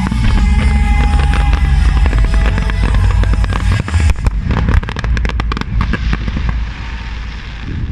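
Aerial fireworks going off in a display: many rapid bangs and crackles, densest around four to five seconds in, then thinning and fading near the end, with music playing underneath.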